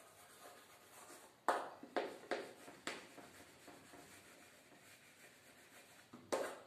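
Chalk writing on a blackboard: faint scratching strokes, with sharp taps and scrapes of the chalk in a cluster from about one and a half to three seconds in and again near the end.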